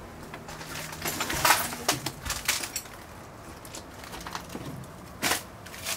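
Footsteps and scuffing as someone climbs down a streetcar's entry steps, a run of short irregular crunches and knocks about one to three seconds in and one more loud scrape near the end.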